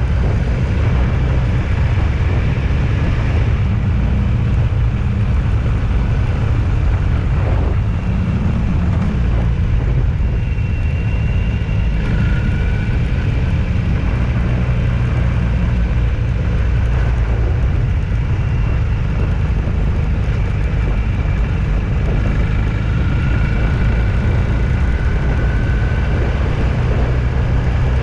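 Steady low rumble of a vehicle on the move, with road and wind noise; faint whining tones come and go over it.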